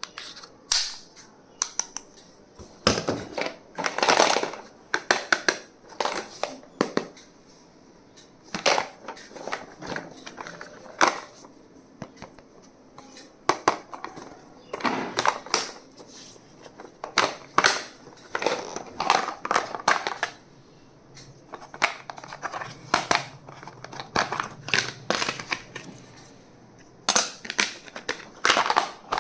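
Stationery packaging being handled and unwrapped: plastic wrappers crinkling and crackling with sharp clicks and taps, in irregular bursts separated by short pauses.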